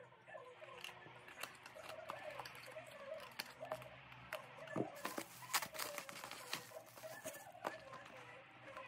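Small cardboard boxes being handled and opened by hand: scattered light taps, clicks and scrapes of thin card, the sharpest a little past the middle. A faint wavering pitched sound runs underneath throughout.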